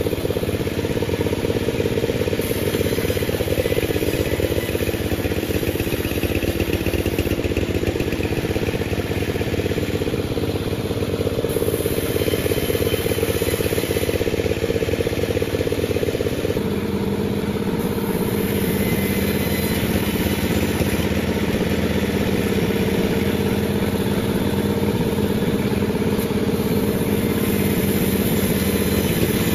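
Panda36 sawmill running steadily at a constant level, its engine and saw making a continuous mechanical drone; the note shifts about two-thirds of the way through.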